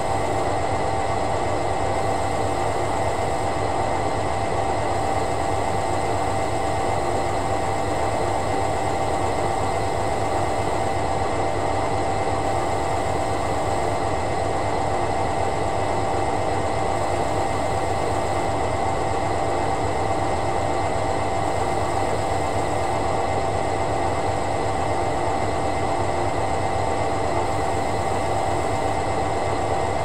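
Hoover A8506 Electron Energy Control 1100 washer-dryer running through a cotton rinse: a steady machine hum and hiss with fixed tones and no drum rhythm, the level unchanging throughout.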